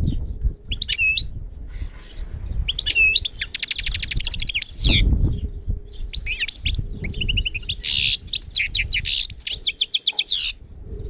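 Small birds chirping and singing fast trills in several bouts, over an uneven low rumble and a faint steady hum.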